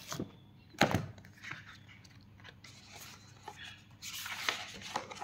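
Paperback workbooks being handled and slid over one another: a sharp tap a little under a second in, small clicks, and a rustle of paper and plastic wrapping about four seconds in.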